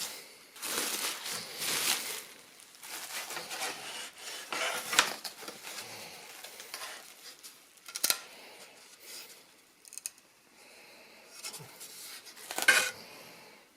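Model kit parts and packaging being handled: irregular rustling and scraping, with sharp clicks and knocks about five seconds in, at eight seconds and just before the end.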